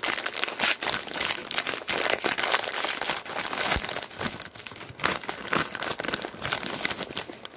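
Plastic snack bag of Chex Mix Muddy Buddies crinkling as it is handled and pulled open at the top.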